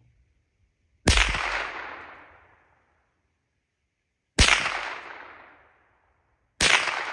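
Three shots from a Winchester Model 77 semi-automatic .22 Long Rifle rifle, the first about a second in, the next two roughly three and two seconds apart. Each crack is followed by an echo that fades over about a second and a half.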